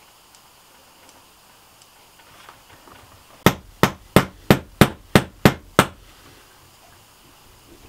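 Hammer striking at a whitewashed ceiling overhead: eight sharp, evenly spaced blows, about three a second, starting about three and a half seconds in.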